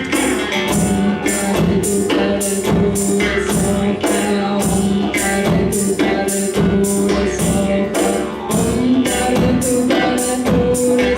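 Band music with hand drums keeping a steady beat, about two to three strokes a second, under long held low notes; a higher melodic line comes in near the end.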